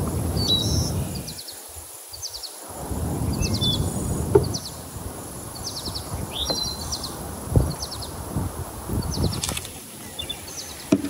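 Small birds singing short repeated chirping trills, about one every second or so, over low rustling and a few soft knocks as thin sheets of rolled dough are handled and laid on a plate. Near the end, plastic cling film crackles as it is pulled over the plate.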